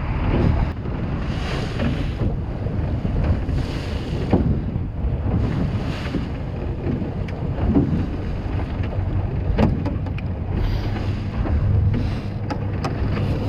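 Small fishing boat running on the open sea: a steady low engine and hull rumble, with water washing past the hull at irregular intervals, a few sharp knocks, and wind on the microphone.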